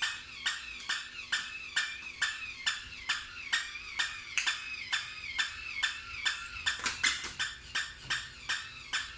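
Battery-operated toy dog making short, sharp electronic yaps in a fast, regular rhythm, about two a second, with a wavering high tone between them.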